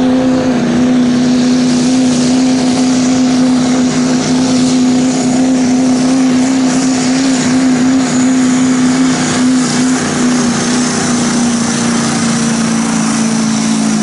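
Diesel Chevrolet Silverado pickup's engine held at high, steady revs under full load as it pulls the sled, the pitch wavering slightly about halfway as it bogs. A faint high whistle joins in the second half.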